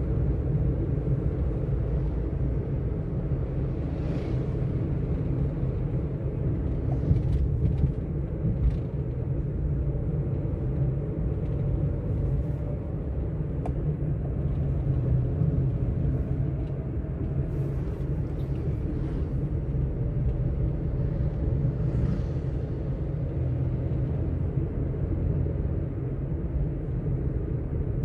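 Steady low road and engine rumble heard inside a moving car's cabin, with a few faint clicks and rattles now and then.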